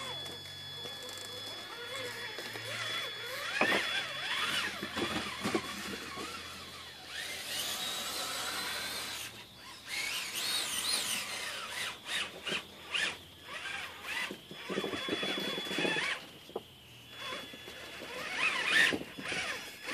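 Traxxas Summit electric RC truck's motor and geartrain whining, the pitch rising and falling as the throttle is worked, with scattered knocks of tyres and chassis on rock.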